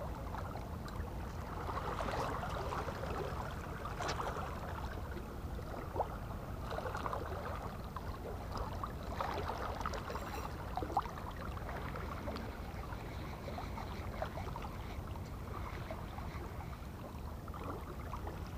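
Small waves lapping and gurgling against seawall rocks over a steady low rumble, with scattered light clicks and splashes.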